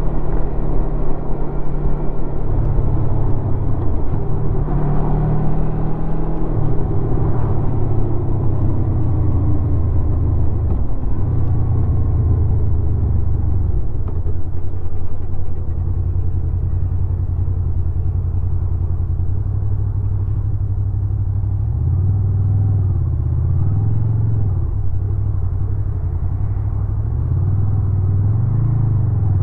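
2016 Honda VFR800's V4 engine through its stock exhaust while riding, a steady low note that shifts in pitch as the revs change and rises and falls repeatedly in the last several seconds as the throttle is worked.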